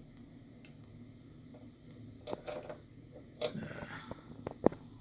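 Small clicks, scrapes and rattles of a microwave door latch's plastic parts and metal spring being worked by hand to hook the spring on. One sharp click comes near the end.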